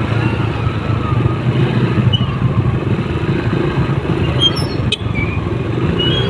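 Motorcycle engine running steadily while riding, with wind and road noise, and a single sharp click about five seconds in.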